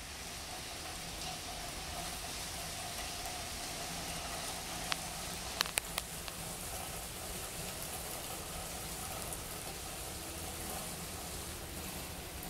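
Steady rain falling on pavement, with a few sharp clicks a little past the middle.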